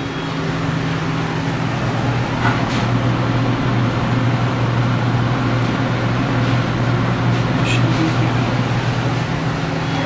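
Commercial reach-in freezer's refrigeration system running steadily while it pulls down in temperature: a constant low hum with fan and air noise, and a few faint ticks.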